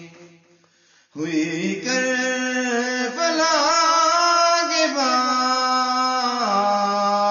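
A man singing a devotional Urdu naat solo. After a short pause he comes in about a second in with long held notes and ornamented turns, then drops to a lower held note near the end.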